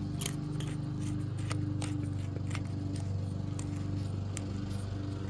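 Light, scattered metal clicks and scrapes as the gas nozzle is twisted back onto a MIG welding gun, over a steady low hum.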